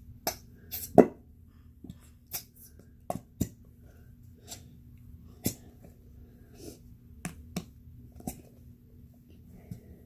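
Irregular sharp clicks and knocks, about a dozen, of containers and utensils being handled against a glass bowl, the loudest about a second in.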